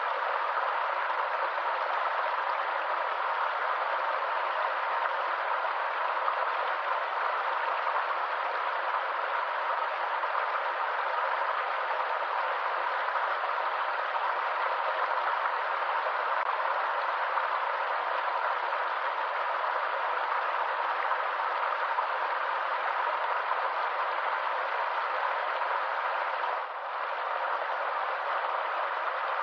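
Stream water rushing and splashing in a steady, unbroken flow, with a brief dip in level near the end.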